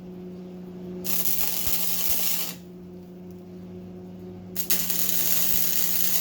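Stick-welding arc with a 1/8-inch 7014 rod crackling and sizzling in two spells while tacking steel: about a second and a half, then again from near five seconds on. A steady low hum runs underneath.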